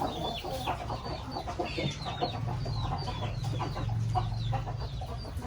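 Chickens clucking, with many short, high, falling chirps throughout.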